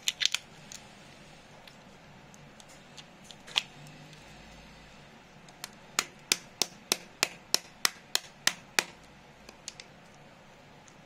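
Metal hand tool striking a laptop charger's transformer to break it apart: a few scattered sharp knocks, then a run of about ten even strikes, roughly three a second, lasting about three seconds.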